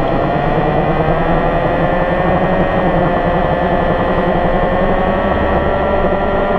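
An engine running steadily under a low rumble, with a whining tone that drifts slowly in pitch.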